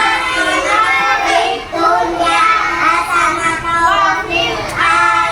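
A child singing a song, the high voice carrying a melody that goes on through the whole stretch with short breaks between phrases.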